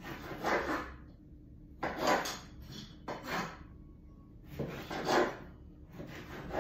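A knife slicing through an orange on a wooden board: four short rasping cuts, one about every second and a half, each ending with a knock of the blade on the wood.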